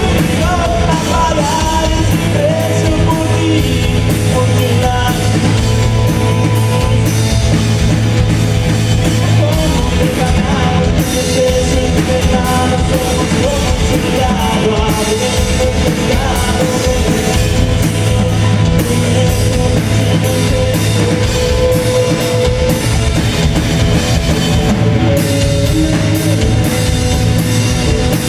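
Loud rock music with a drum kit.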